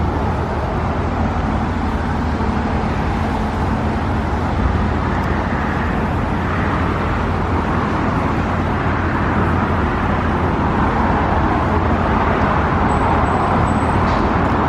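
Road traffic noise with a steady low rumble, swelling as a vehicle passes close by in the second half.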